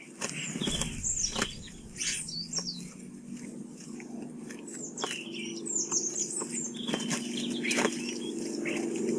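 A group of common starlings at a feeder: chattering, whistled calls and sharp clicks, with a burst of wing flaps about half a second in. A steady low hum runs underneath.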